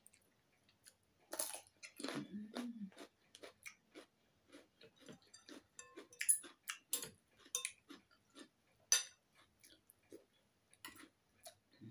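A person chewing a mouthful of noodles, with irregular light clicks of a metal fork and spoon against a ceramic bowl.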